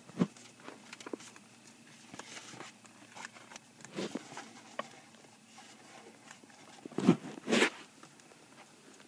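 Faint scattered clicks and rustling, with a louder rustle about four seconds in and two more about seven seconds in.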